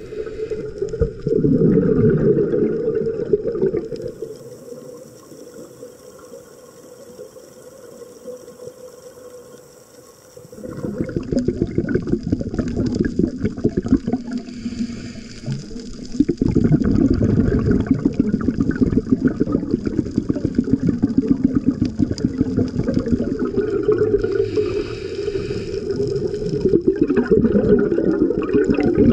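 A scuba diver's breathing underwater: exhaled bubbles from the regulator rumbling past the camera in long, muffled bursts, with quieter gaps between breaths.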